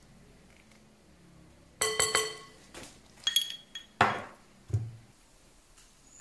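Glassware being handled: a few ringing clinks of glass on glass about two seconds in and again a second later, then a sharper knock and a dull thud, as small drinking glasses are set down and picked up beside a glass mixing bowl.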